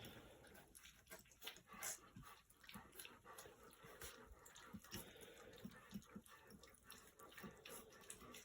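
Three-week-old puppies lapping and smacking at a dish of wet puppy mash: faint, irregular wet clicks and smacks.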